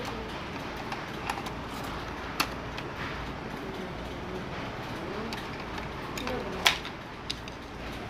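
Plastic toy gun's battery compartment and AA batteries being handled: a few sharp clicks, the loudest near the end, over steady background noise.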